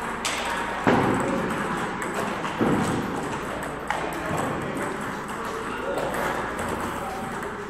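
Table tennis balls clicking off bats and the table in a rally, a handful of sharp knocks at irregular intervals, the loudest about a second in, over background voices.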